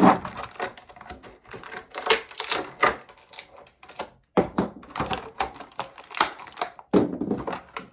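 Clear plastic packaging crinkling and small plastic toy accessories clicking against each other as they are handled, in a rapid irregular patter with a brief pause about halfway through.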